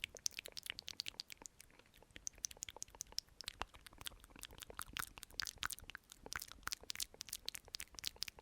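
Wet lip and mouth clicks and smacks made close to the microphone for ASMR, in a fast, irregular run with brief lulls about two and six seconds in.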